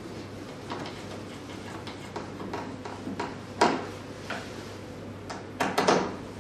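Machine parts being handled and fitted by hand: scattered small clicks and knocks, with one sharp knock about three and a half seconds in and a quick cluster of knocks near the end, over a steady low hum.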